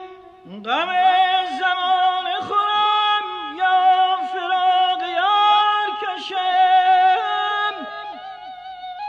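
Male voice singing Persian classical vocal music (avaz) in the Nava mode. It enters about half a second in with sliding, ornamented phrases and held notes.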